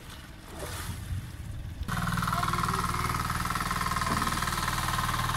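Engine of a wooden river ferry boat running steadily with a fast, even beat, cutting in abruptly about two seconds in. Before it, faint splashing of people bathing in the river.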